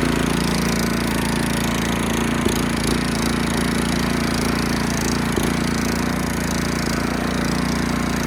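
Greenfield Evolution 3 ride-on mower's engine running steadily on test after its V idler pulley was replaced, with a few faint knocks.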